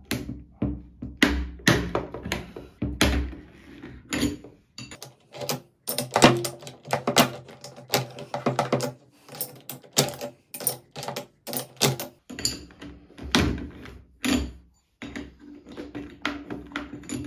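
Irregular metal clinks and knocks of a screwdriver and wrench against a drill's stuck keyless chuck, as the chuck and its nut are worked without coming loose.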